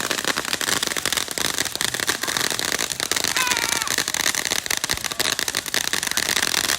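Fireworks crackling: a loud, dense run of rapid pops with no break.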